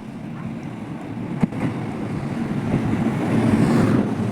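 Low, steady vehicle rumble growing gradually louder, with one sharp click about a second and a half in.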